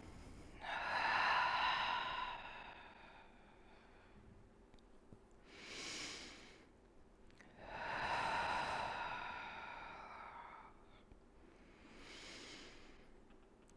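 A woman breathing audibly through Pilates bridge repetitions: a long exhale, a shorter inhale, then another long exhale and another short inhale. The exhales come as her hips roll up and back down, and the inhales at the top and bottom of the movement.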